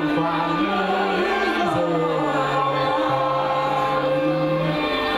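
Vietnamese folk-style song performed live: voices singing long held notes into microphones over instrumental accompaniment.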